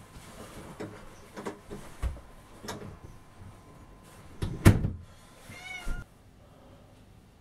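A few thumps and knocks as a person handles a backpack, the loudest a little past halfway, followed by a short wavering squeak.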